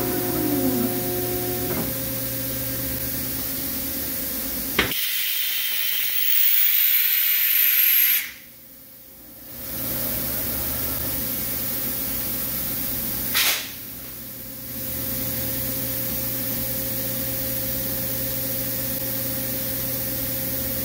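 Steady hum and hiss of a powered-up Mori Seiki SL-6B CNC lathe. A falling tone sounds in the first second and a click about five seconds in. The hiss grows louder for a couple of seconds, then the sound dips briefly twice, around nine and fourteen seconds.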